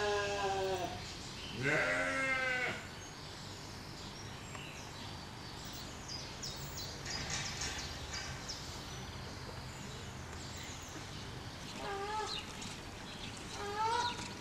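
Goat bleating twice, loud and wavering, in the first three seconds. Faint bird chirps follow over background noise, then a few shorter calls near the end.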